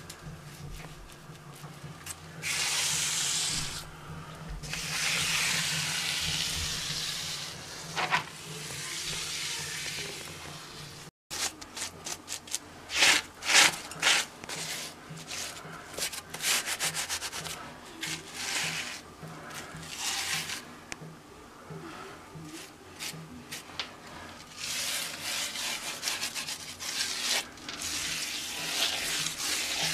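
A scouring sponge rubbed in strokes over fresh cement mortar, float-finishing the render on a concrete window reveal. The strokes are long and smooth at first, then turn shorter and scratchier about a third of the way in.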